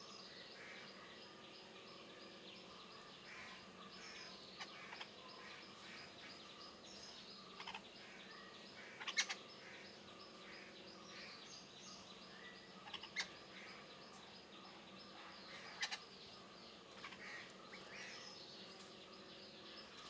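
Faint outdoor garden ambience: birds chirping over a low steady hum, with a few short sharp chirps or clicks standing out around the middle and later.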